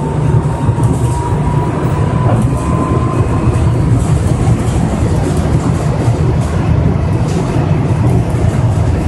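Monorail train running on its rubber tyres along the concrete guideway as it accelerates, a steady loud low rumble, with a faint whine rising slightly in pitch over the first three seconds.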